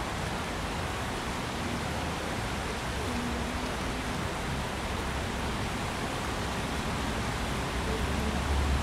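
Steady rushing of the Tsavkisi-Tskali, a small river flowing over rocks and small cascades. A low rumble grows louder near the end.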